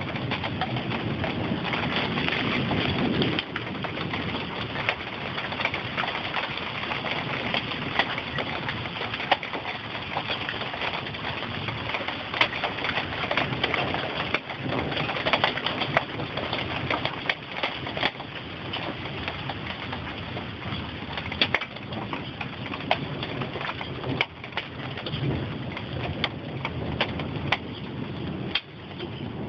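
Steady rain falling, with scattered sharp taps of drops striking sheet metal.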